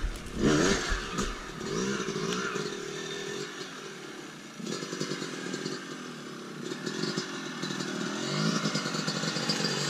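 Two-stroke Yamaha dirt bike engine revving up and down several times as it is ridden, growing louder near the end as it comes closer.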